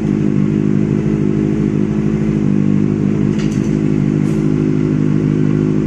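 Benelli superbike engine idling steadily at an even pitch, with a couple of faint ticks in the middle.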